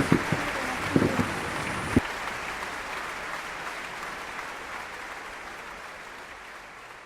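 A crowd applauding at a fireworks display, with a few low thuds in the first two seconds; the applause then fades steadily away.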